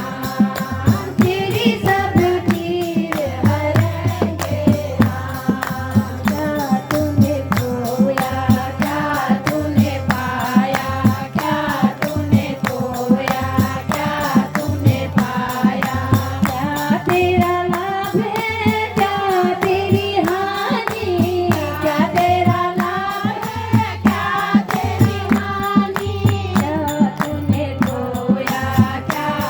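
Hindi devotional bhajan sung by a woman, the melody carried over a steady percussion beat.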